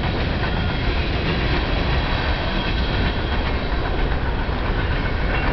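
Long freight train rolling past: a steady, even rumble of the cars' wheels on the rails.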